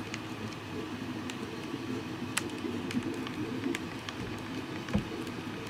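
Screwdriver tightening the clamp bolts on a 3D-printed plastic rail, with a few faint clicks, over a steady low background hum.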